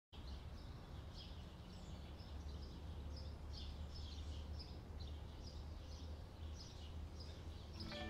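Faint birdsong, many short high chirps in irregular runs, over a low steady rumble of background noise. Music starts just before the end.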